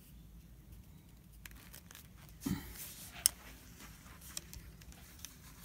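Faint rustling of a wooden air rifle being handled and moved about, with a soft thump about two and a half seconds in and a sharp click just after three seconds.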